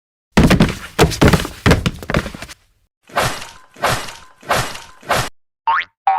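Edited-in cartoon-style sound effects: a quick run of thuds and knocks, then three separate noisy bursts, then short rising chirps near the end.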